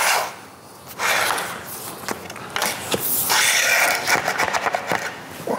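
Drop-and-lock vinyl planks being fitted together by hand: after a short pause, a plank scrapes and slides against the floor and the neighbouring plank, with many small clicks and knocks as its edge is worked into the joint.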